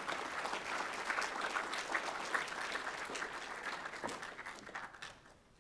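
Audience clapping steadily, then dying away near the end.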